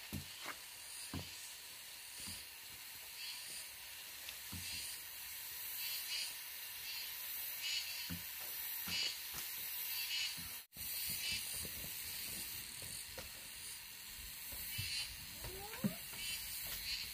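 Steady high insect hiss that pulses about once a second, with a few soft footsteps on a dirt path.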